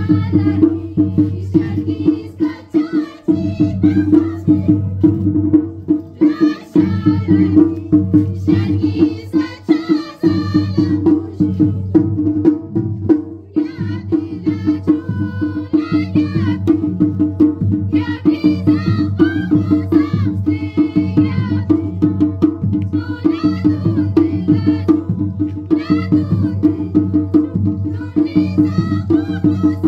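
Ladakhi folk music accompanying the Shondrol dance: a melody over a steady beat on a pair of daman drums, continuing without a break.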